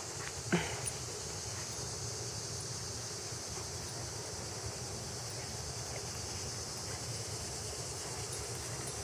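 Steady high-pitched insect chorus, an even unbroken trill, with a brief rising vocal sound about half a second in.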